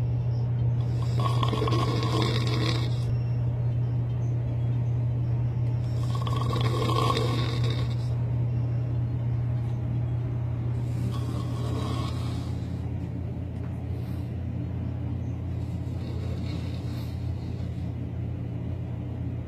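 A man snoring heavily in long drawn-out snores about every five seconds, four in all, the last one fainter; the snores sound like a cow lowing. A steady low hum runs underneath.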